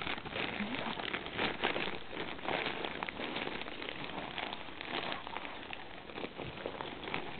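Plastic wrapping on a rope toy crinkling and rustling as it is handled, a continuous patter of small crackles.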